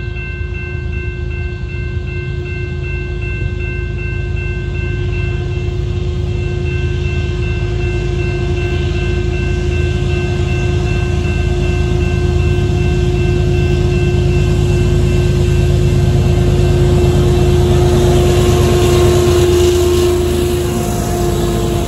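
Canadian Pacific diesel freight locomotives approaching and passing close by: a low rumble that grows steadily louder and peaks as the locomotives go past near the end, with several steady high tones held over it for most of that time.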